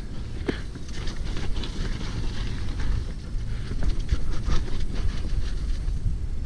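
Wind buffeting a GoPro's microphone as a hardtail mountain bike rolls down a muddy dirt trail, a steady low rumble under many small clicks and rattles from the tyres and bike over bumps.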